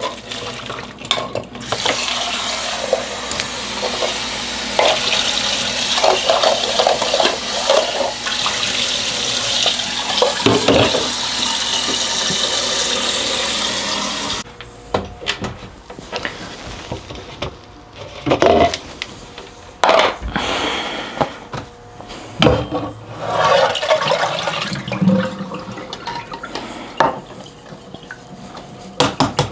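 Kitchen tap running cold water into a stainless steel saucepan of boiled eggs in a stainless sink, a steady splashing rush that cuts off suddenly about halfway through. After it come scattered knocks and clinks of pots and dishes.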